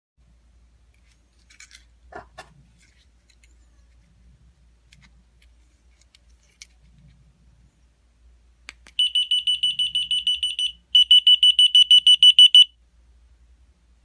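Key finder receiver tag beeping its locator alarm: a rapid high-pitched beep, about seven a second, in two runs of under two seconds each with a short break between, just after a click from the remote's button. Faint handling clicks come earlier.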